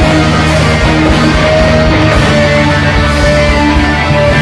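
Loud, dense rock ensemble of rhythm-section instruments (electric guitars, bass and drums) playing held, droning notes that shift every second or so, with regular drum hits.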